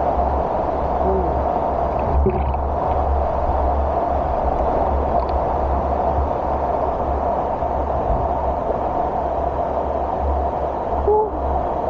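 Steady, muffled rush of waterfall water heard underwater, with a deep rumble, and a few faint short squeaks about a second in, near two seconds and near the end.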